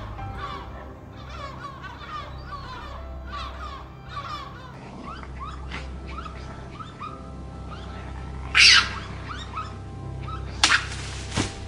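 Birds calling in quick repeated chirps over soft background music for the first few seconds. Then come scattered small noises, with one loud, short burst of noise about two-thirds of the way through and a couple of sharp clicks near the end.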